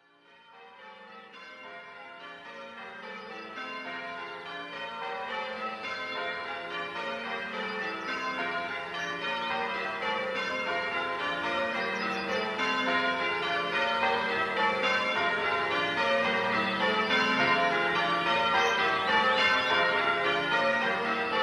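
Church tower bells rung in changes, many strokes in quick succession, fading in over the first few seconds and then ringing on steadily.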